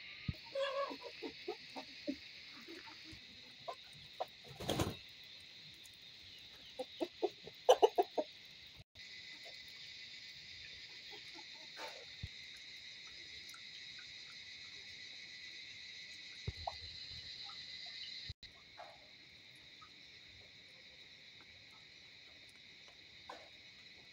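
A chicken clucking in short bursts, loudest in a quick run about seven to eight seconds in, over a steady high-pitched buzz. There is a single knock about five seconds in.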